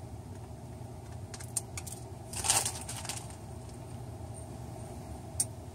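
Handling noises of small laptop parts: a few light clicks, then a brief rustle about halfway through and one more sharp click near the end, over a steady low hum.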